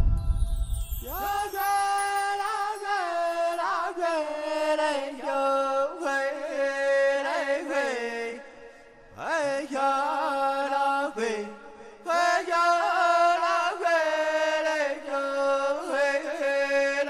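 A solo voice singing a chant-like melody with long held notes and sliding pitches, breaking off briefly twice. A low thump is heard at the very start.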